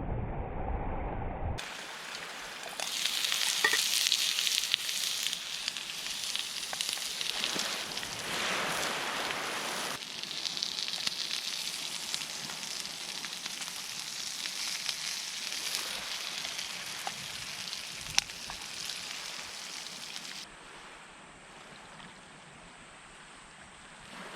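Food sizzling and frying in a pan over a campfire: a dense hiss with scattered sharp crackles. It starts abruptly about a second and a half in and drops to a quieter hiss near the end.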